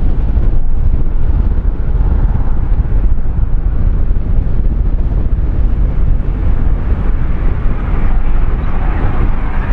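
Wind buffeting the microphone, a loud low rumble throughout. Near the end the distant exhaust of LNER A4 steam locomotive 4498 'Sir Nigel Gresley', working up a bank, begins to come through.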